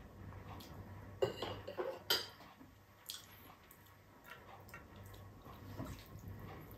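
Metal spoon and fork clinking and scraping against a ceramic dinner plate, several sharp clinks between about one and three seconds in, then quieter handling of food on the plate.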